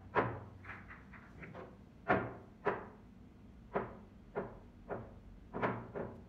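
Billiard balls knocking against each other as they roll through the pool table's ball-return channel after being pocketed. About ten sharp clacks, roughly one every half second to second.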